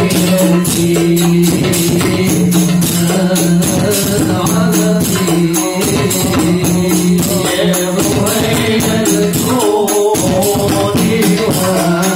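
A group of rebana frame drums struck by hand in a fast, steady, interlocking rhythm, with sung sholawat vocals holding long notes over it, all heard amplified through a PA sound system.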